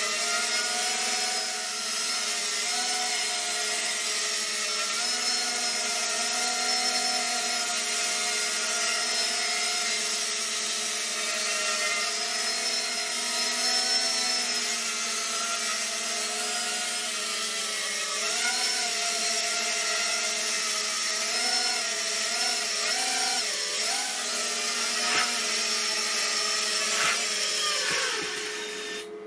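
Walkera Rodeo 110 mini quadcopter's brushless motors whining as it hovers, their pitch wavering with constant throttle corrections. Near the end come two light knocks, then the motors wind down in falling pitch and stop as it sets down on the floor.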